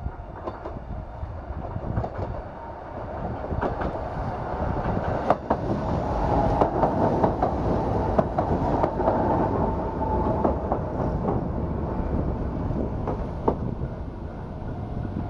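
Sangi Railway Hokusei Line 270-series narrow-gauge electric train running past close by. It grows louder to a peak a few seconds in, with sharp wheel clicks over its running noise, then eases off.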